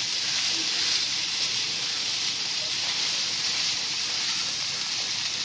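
Vegetable samosa filling of potato, peas, carrot and onion sizzling steadily in oil in a frying pan.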